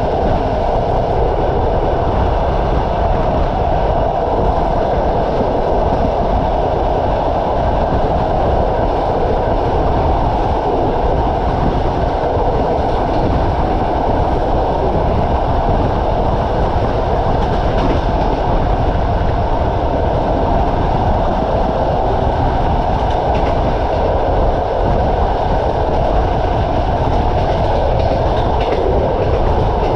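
Passenger train carriage running along the track: a steady rumble and rattle of the wheels on the rails, heard from a carriage window.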